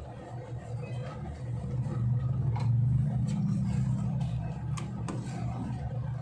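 Metal fork and spoon clicking and scraping in a pan of cream sauce, over a low rumble that swells about two seconds in.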